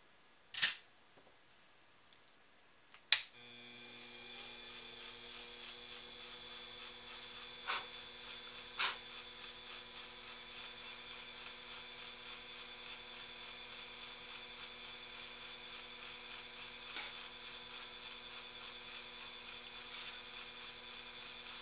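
A small electric motor switched on with a sharp click about three seconds in, spinning up and then running steadily with a hum and a high whine. A few light ticks and taps sound over it.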